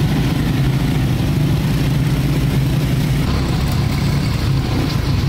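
ATV engines running steadily with a loud, even drone. The sound starts and stops abruptly.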